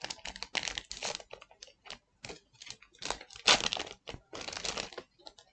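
Trading-card booster pack wrapper crinkling and tearing as it is opened by hand, in a series of short, irregular rustling bursts that stop near the end.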